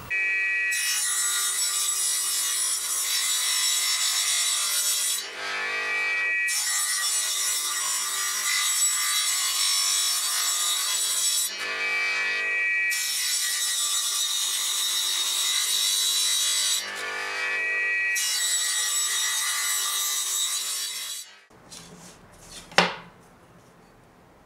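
Table saw ripping wood into strips: four long cuts, each several seconds of loud, even cutting noise, with the motor's steady hum heard alone in the short gaps between them. The cutting stops a few seconds before the end, followed by light handling and one sharp click.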